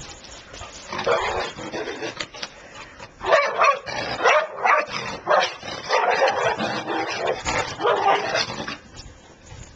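Two dogs play-fighting, with a dense run of barking from about a second in that stops near the end.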